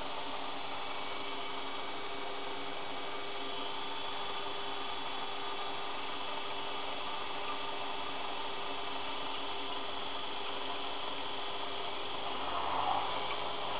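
Einhell BT-ML 300 mini lathe running steadily, a hum with a steady whine over it, while a twist drill in the tailstock bores into a spinning brass rod. It turns louder and rougher near the end.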